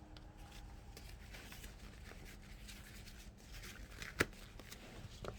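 Faint handling noise of hand tools working a nail out of a car tyre: scattered small clicks and scraping, with one sharp metallic click about four seconds in and a smaller one near the end.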